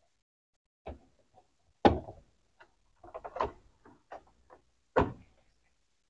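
Plastic control panel of an Electrolux top-load washing machine being pressed down and snapped onto its clips: a series of sharp plastic clicks and knocks, the loudest about two seconds in and another strong one near the end.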